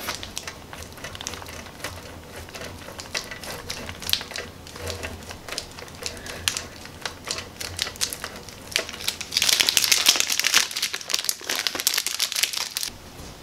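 A block of Monterey Jack cheese grated on a stainless steel box grater over a wooden board: a run of short rasping strokes with some crinkling of the cheese's plastic wrapper. The strokes come fast and loudest for about three seconds near the end.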